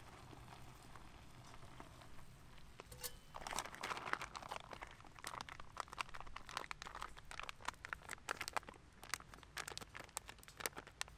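Mountain House freeze-dried meal pouch crinkling and rustling as it is handled and opened. The crinkling starts about three and a half seconds in and goes on in a dense run of sharp crackles.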